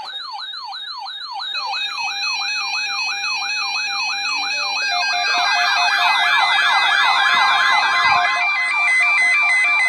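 Several weather radio alert alarms going off together, the sign of an incoming watch or warning broadcast: a fast siren-like sweep about three times a second, joined by steady tones and then a second sweep and a two-note beeping alarm, growing louder.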